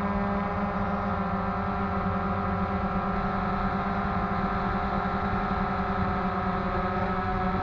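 DJI Phantom 2 quadcopter's four electric motors and propellers humming steadily in flight, heard from on board, with a steady pitch and a noisy hiss of rushing air beneath it.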